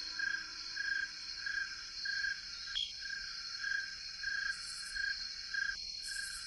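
Night insect chorus: crickets chirping in an even rhythm, a little under two chirps a second, over a steady high trill, cutting off suddenly near the end.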